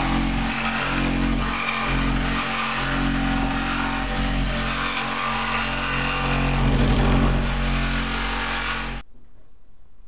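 A corded power tool's motor running steadily under load, then cutting off suddenly about nine seconds in.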